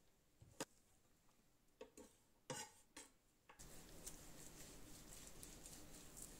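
A few light clicks and knocks of diced carrot pieces dropping into a ceramic bowl. From about three and a half seconds in, a faint steady hiss with soft ticks as a large kitchen knife slices through a slab of bacon.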